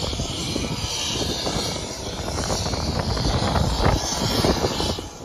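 Loud, steady rushing noise with an uneven low rumble: wind buffeting the microphone on the open airport apron, mixed with jet aircraft engine noise.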